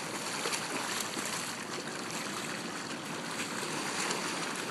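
Steady splashing and churning water as two swimmers, a man and a child, kick and stroke across a swimming pool.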